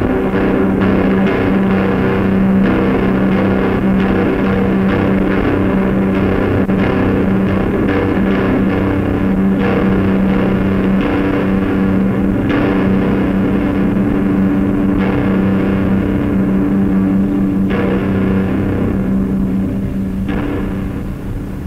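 Lo-fi noise/shoegaze music from a home cassette recording: a distorted electric guitar drones on one steady low note, with drums. The top end is dull because it was taped through the air from another cassette recorder. The sound thins out near the end.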